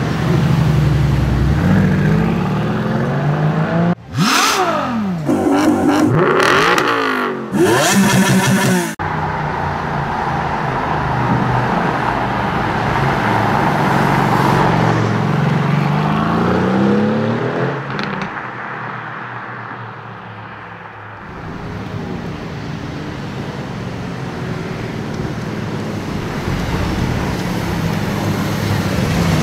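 Mercedes-AMG GT R's twin-turbo V8 accelerating hard in a series of separate runs, the engine note climbing through the revs each time. The loudest run, a few seconds in, drops in pitch as the car sweeps past.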